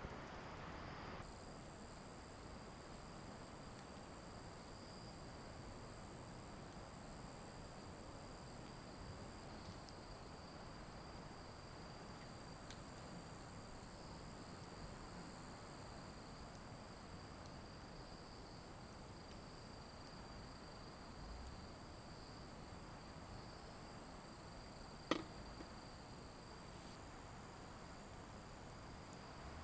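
Insects, crickets or the like, chirring in a steady high-pitched chorus that eases off near the end. A single sharp click or snap stands out a few seconds before that.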